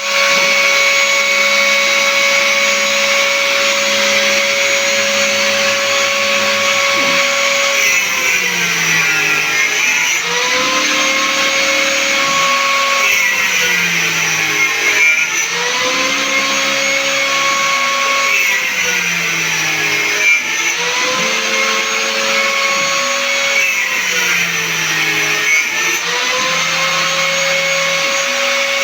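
CNC router spindle running with a steady high whine while cutting a guitar fretboard. From about eight seconds in, its pitch sags and recovers in a repeating cycle about every five seconds.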